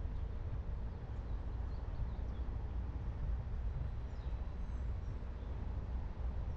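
A car driving, heard as a low steady rumble of road noise, with a few faint bird chirps over it in the first couple of seconds and again about four to five seconds in.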